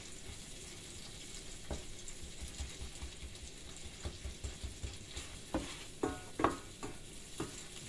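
Wooden spoon stirring garlic and onion frying in a pan, with a faint sizzle and a few light knocks of the spoon against the pan, most of them near the end.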